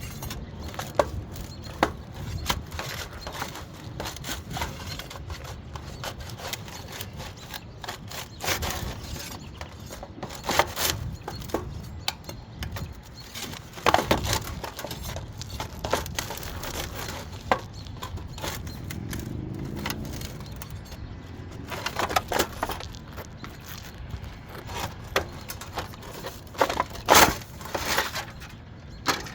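Irregular knocks, scrapes and cracks of hand-tool work on an asphalt-shingle roof, prying and breaking up old shingles. The loudest is a cluster of sharp knocks near the end.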